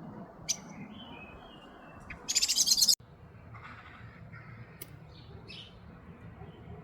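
Small birds chirping in short, high calls, with a loud, rapid pulsed trill lasting under a second about two seconds in that breaks off abruptly.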